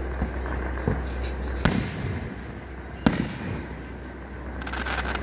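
Aerial firework shells bursting in the distance: two sharp, echoing bangs about a second and a half apart, with a few fainter thumps before them and a brief rapid crackle near the end.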